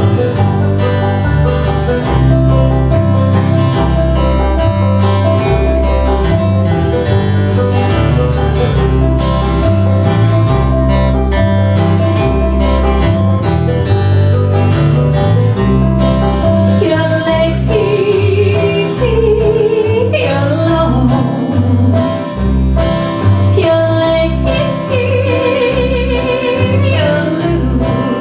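Live acoustic band music with banjo and guitar picking over a steady bass in a bluegrass-country style. A woman's voice comes in singing about two-thirds of the way through.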